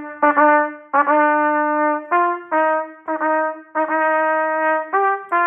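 Solo trumpet playing a phrase of separately tongued notes in the middle register, mixing long held notes with short ones in dotted rhythms: a demonstration of the dotted quarter–eighth figure from a cornet etude.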